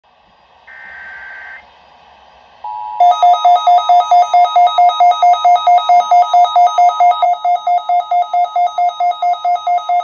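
Midland weather alert radio receiving a NOAA Weather Radio alert. About a second in comes a short burst of SAME digital header data. Then a steady attention tone starts, and from about three seconds in the radio's own alarm beeps loudly over it, about four beeps a second.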